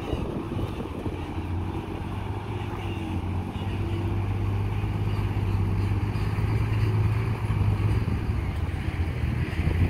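Dump truck's diesel engine running steadily as the truck drives through the pit, growing somewhat louder over the last few seconds.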